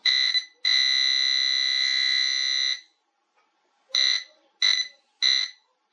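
Quest XPointer Max pinpointer's alert tone as it detects a coin: a short beep, then a steady tone for about two seconds, then after a pause a run of short beeps a little over half a second apart.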